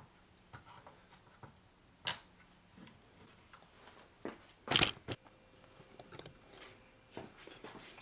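Quick-grip bar clamps being squeezed onto a glued wooden assembly and handled on a workbench: scattered clicks and knocks, a sharp one about two seconds in and the loudest about five seconds in.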